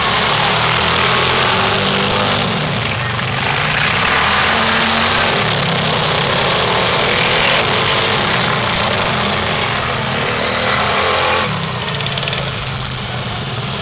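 Racing lawn mower engines running, their pitch rising and falling as they rev. The sound drops a little in level about eleven and a half seconds in.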